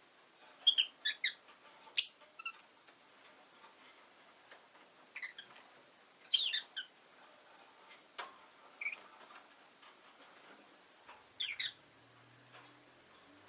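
Rosy-faced lovebirds chirping: short, sharp, high-pitched calls in clusters of two to four, coming every few seconds with quiet gaps between, and a few small clicks.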